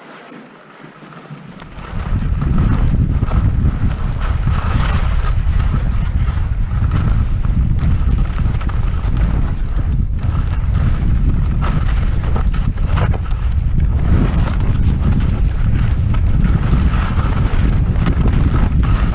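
Wind rushing over the camera's microphone as a skier gathers speed downhill, over the hiss and scrape of skis on snow. It starts about two seconds in, after a quieter moment standing still.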